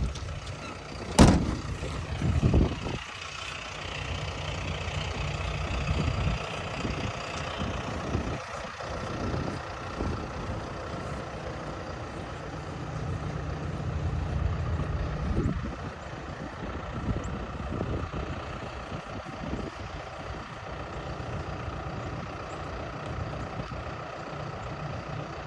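Pickup truck engine running as it drives, a steady low rumble, with a sharp knock about a second in.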